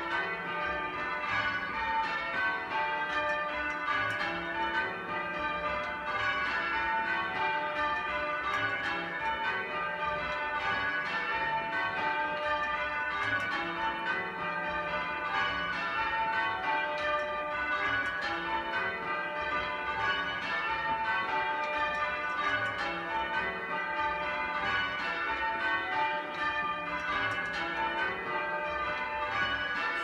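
A ring of eight church bells with a 20 cwt tenor, the two heaviest with wooden-shafted clappers, being rung in changes: a steady, unbroken stream of overlapping bell strikes, heard from the ringing chamber below the bells.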